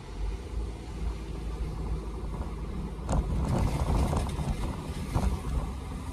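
Car driving on a wet, slushy street, heard from inside the cabin: a steady low road rumble, with louder tyre hiss on the wet pavement from about three seconds in until about five and a half seconds in.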